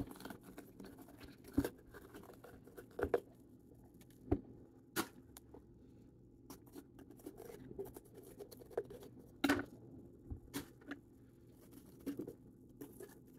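Small knife cutting into raw bell peppers to core them around the stem: faint, irregular, sharp crisp cuts and clicks, several seconds apart.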